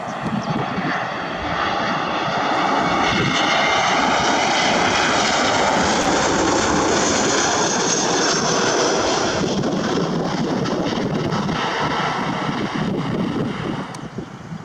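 Airbus A321 jet passing close by, its engine noise building over the first couple of seconds, staying loud with a sweeping whine through the middle, then fading away near the end.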